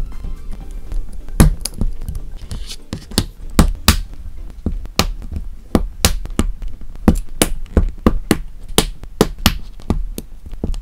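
LEGO plastic plates and bricks clicking and snapping together as they are pressed into place. A quick run of sharp clicks, about two or three a second.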